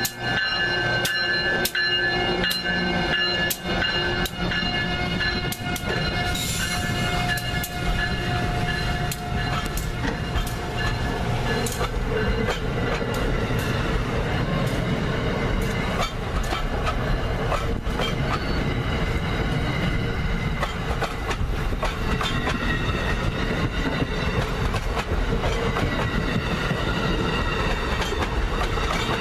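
Amtrak train's Nathan K5LA five-chime air horn sounding a held chord for the first six or seven seconds, then the train rolling by with a steady rumble and its wheels clicking over rail joints.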